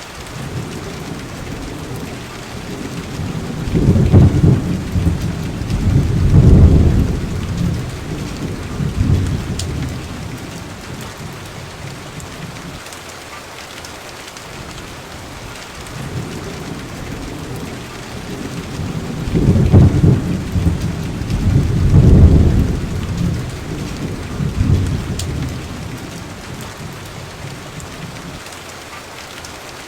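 Steady rain with thunder: two long, low rolls of thunder, one starting about four seconds in and another about nineteen seconds in, each rumbling for several seconds with a few peaks.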